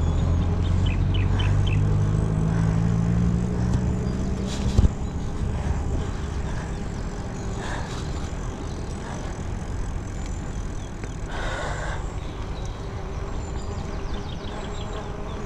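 Wind rushing over the microphone and tyre noise from a moving bicycle on smooth asphalt. A steady low hum runs through the first few seconds and ends with a sharp knock about five seconds in. A few bird chirps are heard about a second in.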